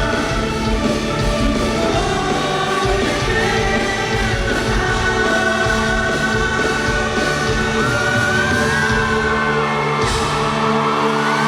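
Live rock band performance in a large hall, with a singer over drums and guitars. Near the end the drums drop out and the audience screams.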